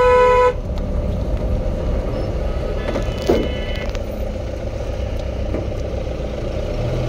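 A vehicle horn blast that cuts off about half a second in, then the steady low rumble of engines and tyres on the road, with a fainter, higher horn about three seconds in.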